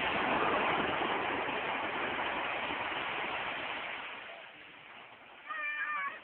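Surf washing in on the beach, fading away after about four seconds. Near the end a short high voice calls out.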